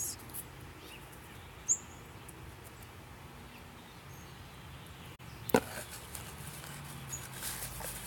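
Quiet yard background with a steady low hum, broken by a single short, very high bird chip about two seconds in and a fainter high note near the end; a click about five and a half seconds in.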